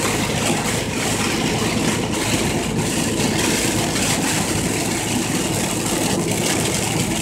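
Vehicle engine and road noise heard from inside the cab at highway speed, with sleet and ice pellets pattering steadily on the windshield.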